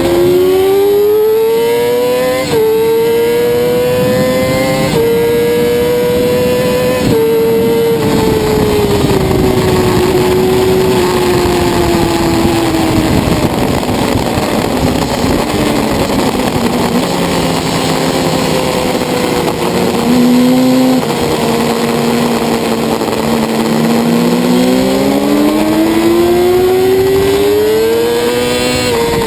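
Sport motorcycle engine at high revs, accelerating hard through three quick upshifts in the first eight seconds, then revs falling away for a long stretch before climbing hard again near the end. Steady wind rush underneath.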